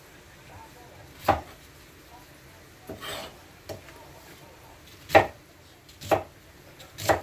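Kitchen knife chopping vegetables on a cutting board: four sharp, irregularly spaced knocks, with a softer scrape between them.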